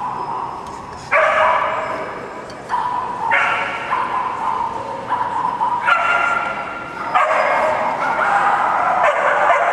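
A dog yelping and whining loudly in repeated long bouts, with new bouts starting about a second in and again around three, six and seven seconds.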